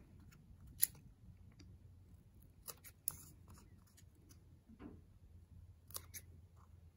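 Scissors snipping through a thin sheet of craft foam: about five short, quiet snips at irregular intervals, a pair of them close together about six seconds in.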